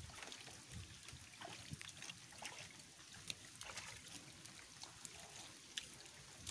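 Faint, irregular sloshing and small splashes of shallow muddy water as someone wades through it, with scattered light ticks.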